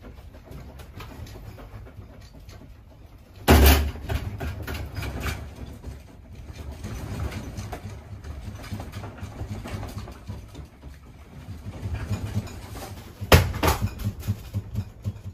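A house's contents rattling and clicking over a low rumble as an earthquake shakes the building, with two loud bangs, one about three and a half seconds in and one near the end.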